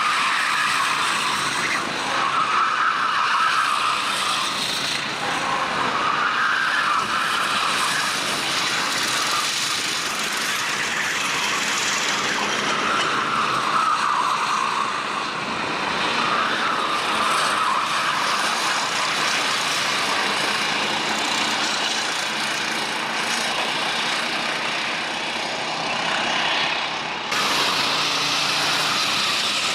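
Racing kart engines running at speed, the pitch repeatedly rising and falling as they rev up on the straights and ease off into corners. About three seconds before the end the sound changes abruptly.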